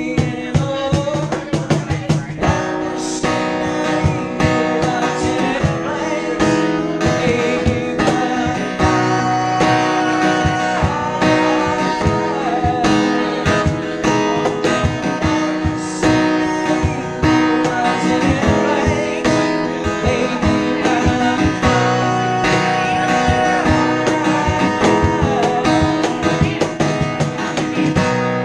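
Live acoustic guitar strummed with a man singing over it, and a cajon tapping out the beat underneath.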